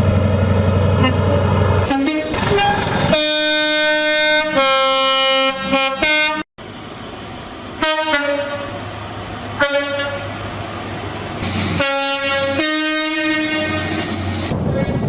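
Train horns sounding in a series of blasts, the pitch changing between notes as on a two-tone horn, over the steady low rumble of a train. The sound cuts out suddenly for a moment about halfway through.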